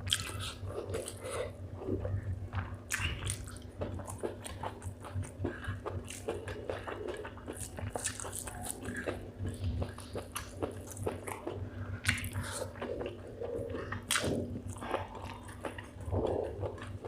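Close-up chewing and biting of spicy chicken gizzard with rice: irregular wet mouth clicks and crunches, over a steady low hum.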